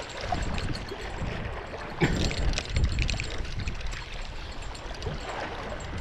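Small waves lapping and splashing against the rocks of a lakeshore, with a sharp knock about two seconds in.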